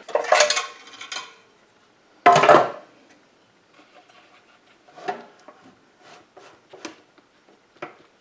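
Blower shroud of a small engine being worked loose and lifted off by hand: clattering in the first second, a louder scrape a little after two seconds in, then scattered light clicks and taps.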